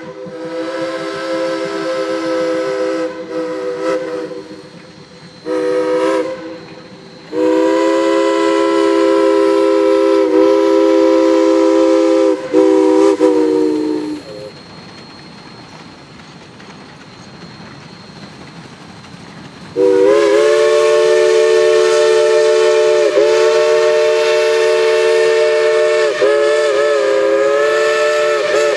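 Shay geared steam locomotive's multi-chime steam whistle sounding a chord in several blasts: one fading out, a short blast, then a long one. After a pause of about six seconds with only fainter running noise, a last long blast wavers in pitch near the end.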